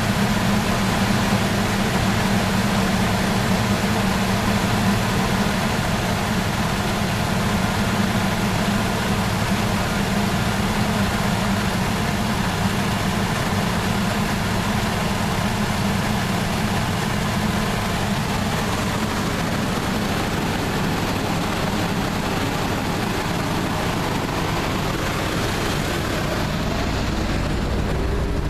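Chevy 350 small-block V8 in a 1979 Chevy truck idling steadily. It has a nagging misfire that the owner is trying to diagnose.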